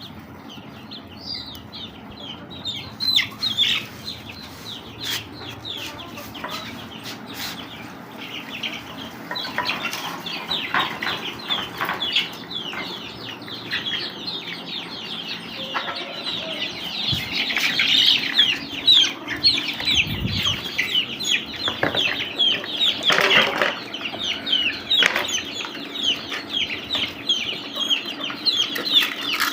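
Chicks peeping in many short, high, falling chirps, with hens clucking among them. It grows busier and louder about ten seconds in, with occasional knocks.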